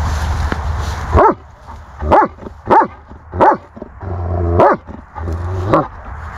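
Long-haired German Shepherd barking: six short, sharp barks about a second apart.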